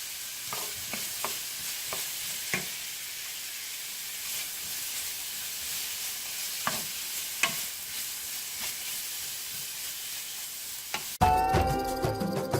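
Vegetables sizzling in a frying pan on low heat while being stirred, with a few short taps of the utensil against the pan. Music cuts in abruptly about a second before the end and is the loudest sound.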